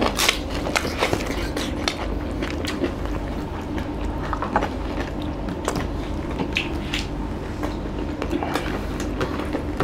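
Close-miked chewing and mouth sounds of two people eating rice and chicken curry by hand, with irregular wet smacks and clicks over a steady low hum.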